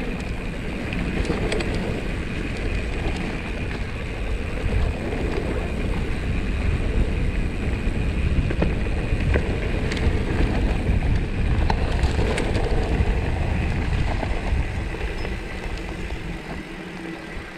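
Wind buffeting an action camera's microphone while a mountain bike rides down a rough trail, with scattered clicks and rattles from the bike over the ground.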